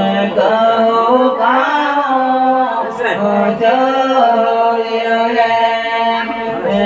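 Voices singing a chant-like folk song through microphones, with a bowed fiddle holding steady notes under the singing.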